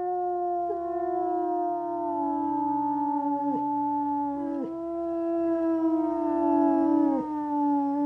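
Grey wolves howling in chorus: several long, steady howls overlap and fall slowly in pitch, and each one ends in a quick downward slide.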